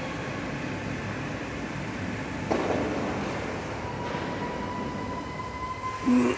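Steady factory assembly-line noise: a continuous mechanical rumble, with a clunk about two and a half seconds in and a thin steady whine joining about four seconds in.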